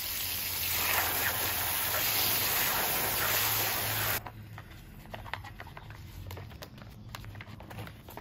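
Garden hose spray nozzle jetting water onto a soapy plastic air filter box cover, a steady loud hiss that cuts off suddenly about four seconds in. Scattered light clicks and scratches follow.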